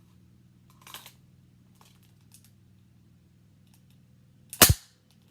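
Small airsoft pistol firing a single shot, a sharp snap near the end, after a few faint handling clicks about a second in.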